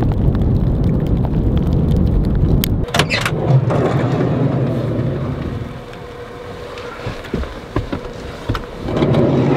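Wind rushing hard for about the first three seconds. After that come scattered knocks and rustling of a jacket as a person climbs into a camper van, and a loud rush of noise near the end.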